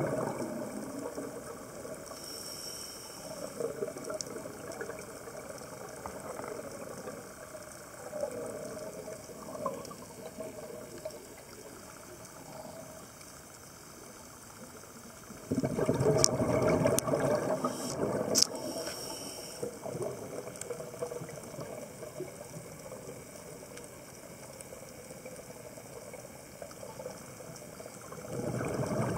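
Underwater sound of a scuba diver breathing through a regulator. A loud burst of exhaled bubbles comes about halfway through and another starts near the end, with quieter water gurgle and hiss between them. A few sharp clicks sound during the first bubble burst.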